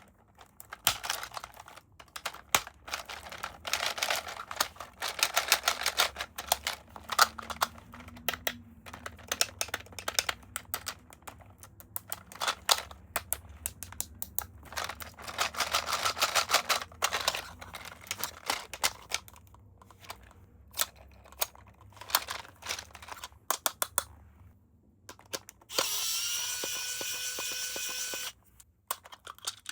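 Toy packaging being handled and opened: crinkling, rustling, clicks and taps coming in irregular flurries. Near the end, a steady high buzz lasts about two seconds.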